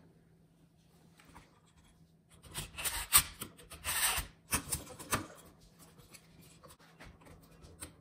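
Scraping and rubbing as an old wall light switch and its wires are handled and worked on with hand tools, in a few short bouts starting about two and a half seconds in.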